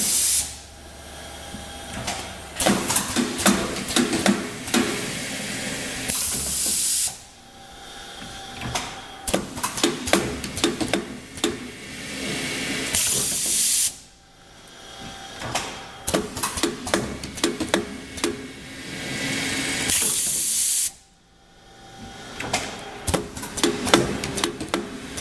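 CRT-50 rotary-type rubber parts trimming machine cycling. A loud rush of compressed-air hiss lasting about a second recurs roughly every seven seconds, four times. Between the hisses comes a busy run of sharp clicks and clacks from the pneumatic cylinders and the indexing turret.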